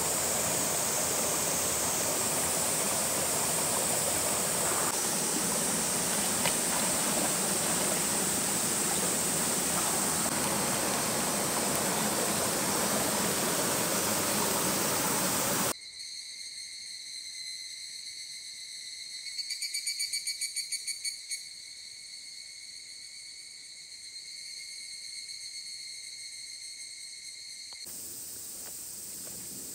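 Rushing water of a stream or waterfall, a loud steady hiss, for about the first half. It cuts suddenly to insects trilling in several steady high tones, with a short burst of rapid pulsing in the middle, before a fainter rush of water returns near the end.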